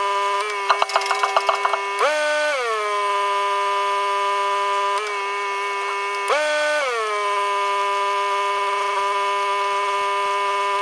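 A steady mechanical whine, like a small electric motor running at constant speed. It is broken by a quick run of sharp knocks about a second in, and twice the pitch jumps up briefly and slides back down.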